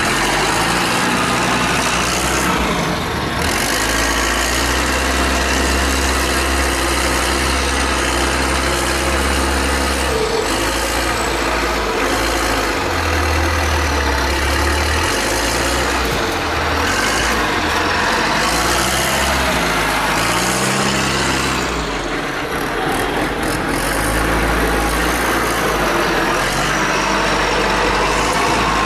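Diesel engine of a front-end wheel loader running, its engine note shifting up and down several times as the revs change.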